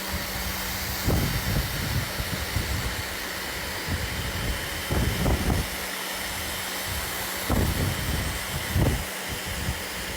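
Plug-in electric pressure washer with a 15-degree tip blasting concrete: a steady hiss of the water jet, with the motor's low hum dropping in and out underneath. A few short, louder low gusts break through now and then.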